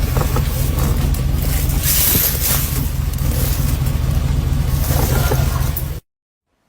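Loud, steady vehicle noise with a constant low engine drone, cutting off suddenly about six seconds in.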